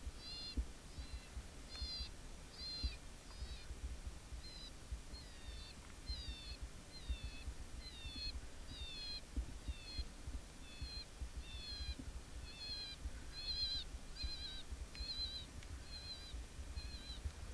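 High, down-slurred bird-like chirps repeated steadily about twice a second, over a low rumble.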